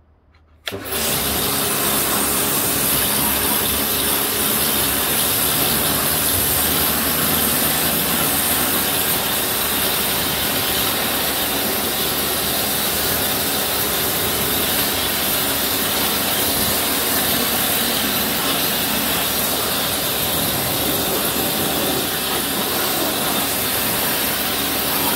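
Pressure washer running, its water jet spraying and rinsing foam off plastic toolboxes. The steady noise starts suddenly about a second in and cuts off at the end.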